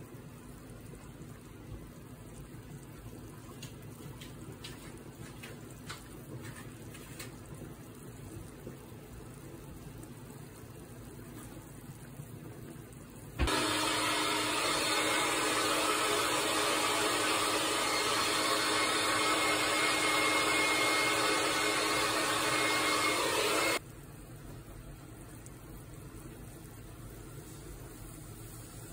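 Pot of pork-backbone broth boiling on a gas stove: a faint steady bubbling with a few light clicks. About thirteen seconds in, a much louder steady rushing noise with a low hum starts abruptly, runs for about ten seconds and cuts off just as abruptly.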